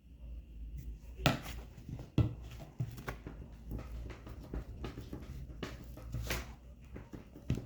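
Victorinox Hunter Pro Alox folding knife blade sawing and scraping into a plastic PVC water pipe: a run of irregular scrapes and knocks, a few of them sharper and louder.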